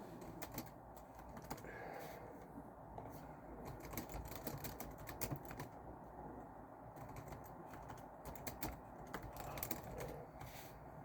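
Typing on a computer keyboard: irregular runs of keystroke clicks with short pauses between them, over a steady low background noise.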